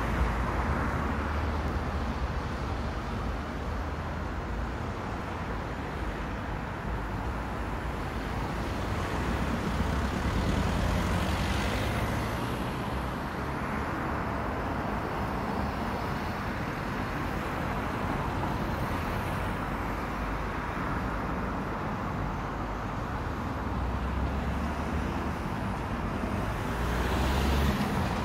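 Steady hum of road traffic, with vehicles passing closer and swelling louder about ten seconds in and again near the end.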